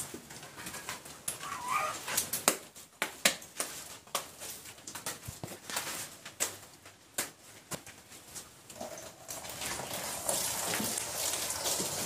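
Scattered sharp clicks and knocks, then, from about three-quarters of the way in, a steady splashing hiss of a cow's urine stream hitting the concrete floor.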